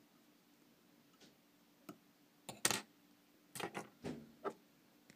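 A scattering of short clicks and taps as fly-tying tools are handled at the vise, the loudest pair near the middle and a quicker cluster after it.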